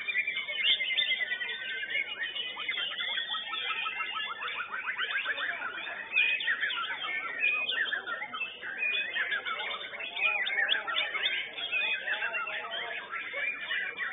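White-rumped shamas (murai batu) singing, several at once: a dense, unbroken run of quick whistled phrases, sliding notes and rapid trills.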